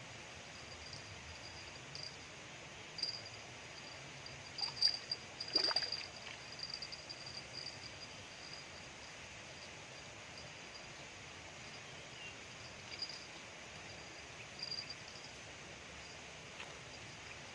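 Insects chirping in short, uneven pulses at a high pitch over steady outdoor background noise, with a few brief louder sounds around the middle.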